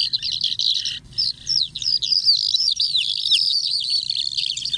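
Recorded bird calls played from a small digital electroacoustic hunting lure: a dense, unbroken stream of overlapping high chirps, many of them quick falling sweeps, used illegally to draw migrating birds within shot.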